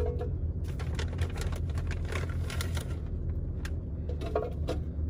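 Irregular light clicks and knocks as hands handle things on a shelf, over a steady low hum.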